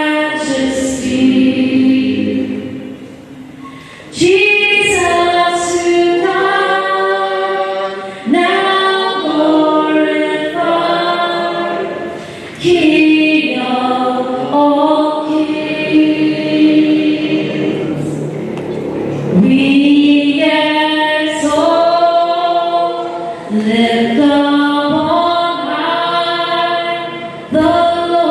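A choir singing a slow hymn in long held phrases, with short breaks between phrases.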